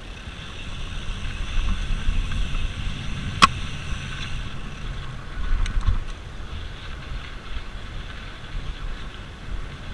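Mountain bike being pedalled uphill on a dirt trail, with low wind rumble on the camera microphone. There is one sharp click or knock about three and a half seconds in, and a few small ticks near the middle.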